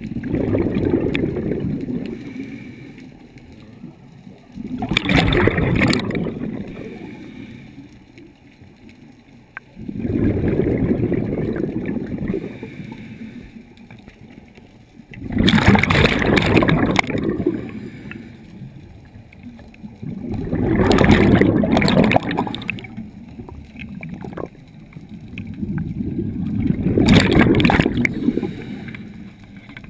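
Scuba breathing through a regulator, heard underwater: a surge of breath and exhaled bubbles about every five seconds, some of them loud bubbling rushes.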